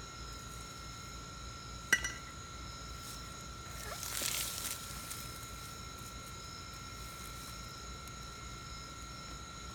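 A single sharp metallic clink about two seconds in, then a brief scraping rustle a couple of seconds later, over a faint steady high-pitched hum.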